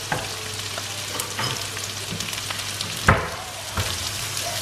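Chopped onions sizzling in hot coconut oil with whole spices in a wok, a steady frying hiss. Scattered clicks and one louder knock about three seconds in.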